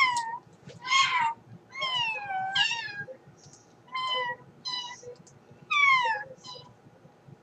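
A girl imitating a cat with her voice: a string of about eight short, high-pitched mock meows, most falling in pitch, with short gaps between them.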